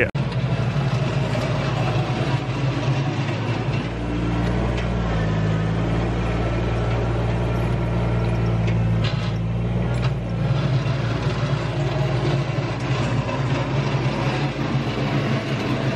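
Compact tractor with a front loader bucket, its engine running steadily under way, the pitch shifting slightly about four seconds in.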